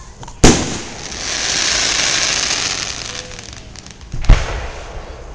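Aerial fireworks going off: a loud bang about half a second in, a long hiss that swells and fades over the next few seconds, and a second loud bang about four seconds in.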